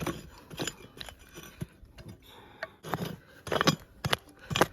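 Prospecting pick digging into stony ground: a run of irregular strikes and scrapes, roughly one every half second, with the hardest blows near the end.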